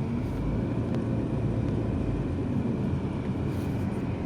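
Car driving along a road, a steady low engine and road rumble.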